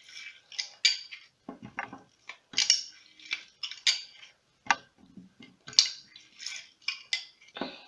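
Handheld metal lime squeezer being pressed over and over above a plastic bowl: irregular clacks and clicks of the hinged press, with short splashy squirts of lime juice.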